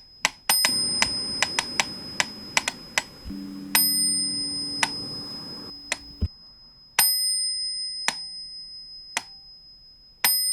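A small high-pitched bell struck about every three seconds, each strike ringing out and fading, over steady sharp ticking of about three clicks a second. A low steady hum joins in the middle, and a rushing noise beneath cuts off abruptly about six seconds in.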